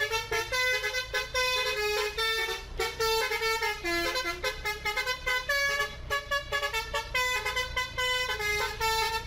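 Indonesian 'telolet basuri' multi-tone bus horn playing a fast tune of short notes without a break, over a low steady engine hum.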